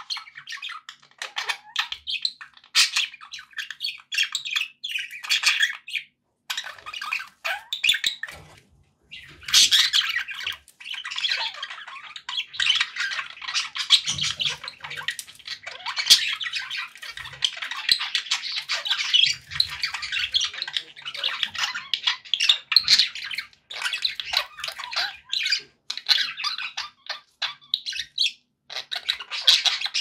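Several budgerigars chattering with squawks and chirps. The calls come in short bursts at first, then run into an almost unbroken warbling chatter from about nine seconds in.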